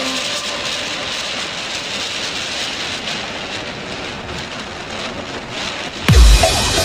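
Steady rush of wind and road noise on a motorcycle-mounted microphone while riding at speed, with no clear engine note standing out. Near the end, loud music with a heavy beat cuts in suddenly.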